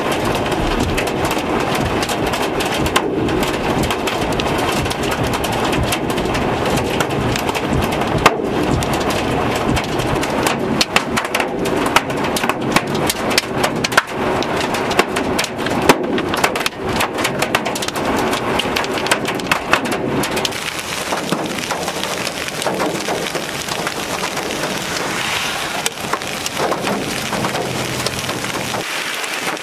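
Heavy rain mixed with hail: a dense steady hiss with many sharp ticks of hailstones striking the ground, thickest in the middle stretch.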